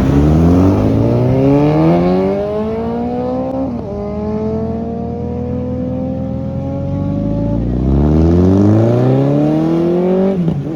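Bajaj Dominar motorcycle engine accelerating, its pitch climbing through the revs, with an upshift about four seconds in. The engine eases off around eight seconds, pulls up again and shifts once more near the end.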